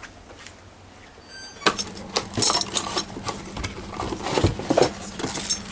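Pump set and metal manifold fittings being handled and fitted together: a run of clicks, clinks and knocks that begins about a second and a half in, over a faint steady hum.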